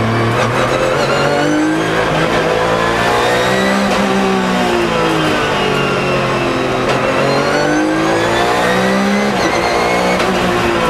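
Porsche 997 GT3 Cup's 3.6-litre flat-six heard from inside the cabin, its revs climbing and falling again several times while driving.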